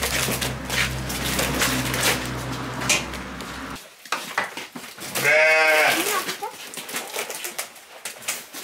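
A low steady hum with scattered knocks, which cuts off suddenly partway through; then a sheep bleats once, long and quavering, the loudest sound, followed by a few more knocks.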